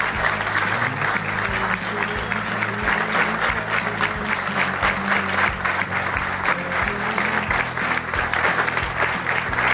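A crowd applauding steadily, with background music of sustained low notes underneath.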